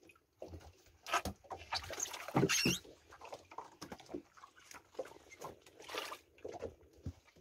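Fish being handled in a fibreglass boat: scattered knocks, scrapes and brief squeaks as the catch is picked up and moved.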